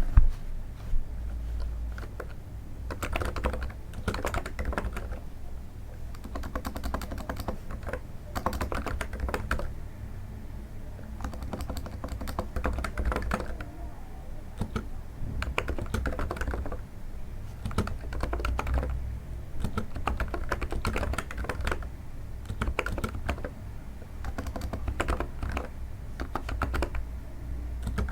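Typing on a NIZ electro-capacitive keyboard: runs of quick, soft keystrokes broken by short pauses, a sound likened to stepping on snow.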